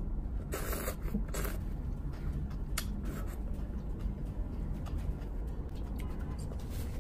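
Close-up eating sounds of a person sucking and slurping at crab in spicy Padang sauce: two short slurps within the first second and a half, then a single click near three seconds, over a steady low hum.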